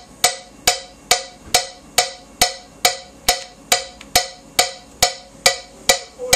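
Metronome click track with a wood-block sound, ticking evenly about twice a second (around 138 beats per minute) as a steady tempo guide for recording drums.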